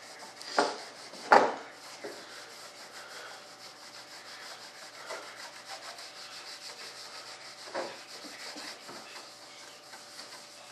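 Mold-release honey wax being rubbed by hand across the smooth surface of an aircraft mold: a steady, fast, scratchy rubbing made of many quick strokes. Two sharp knocks come near the start, and a softer one comes later.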